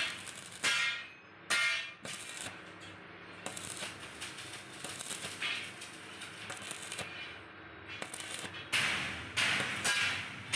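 Arc welding on thin square tubing, done in short stitches: several brief bursts of crackling arc in the first two seconds, a longer, quieter stretch of crackle through the middle, then more short bursts near the end.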